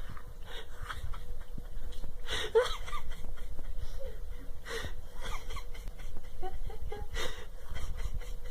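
Dog panting and wheezing in a string of breathy bursts, with a few short squeaky whines.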